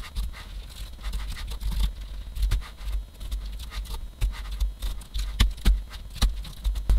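Typing on a computer keyboard: quick, irregular key clicks, many with a low thud beneath them.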